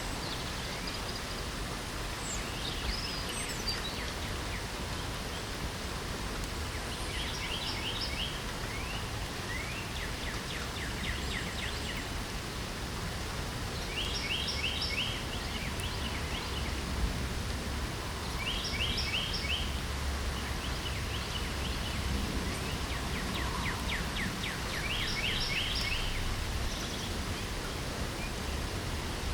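Steady hiss of light rain, with a songbird repeating a short, fast trilled phrase every few seconds, about five or six times.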